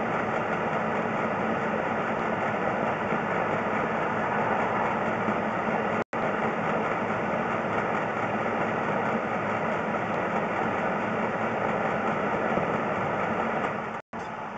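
Steady mechanical running noise with a faint low hum, broken twice by a split-second dropout to silence, about six seconds in and again near the end.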